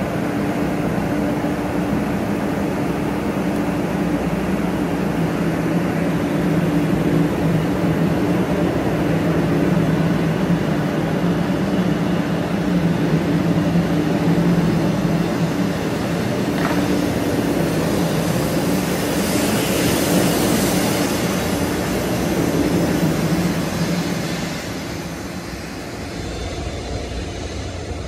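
A 500 Series Shinkansen pulls out along the platform with a steady electrical hum. A rush of wheel and air noise builds as the cars slide past, and the sound fades near the end as the train draws away.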